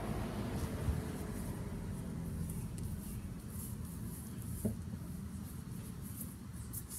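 Steady low outdoor rumble, with a brief knock about a second in and another short knock a little before five seconds.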